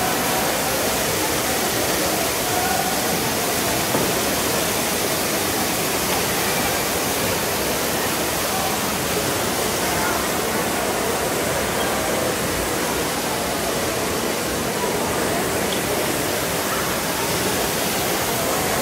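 Steady rushing of floodwater pouring and streaming across indoor floors, an even, unbroken roar of water.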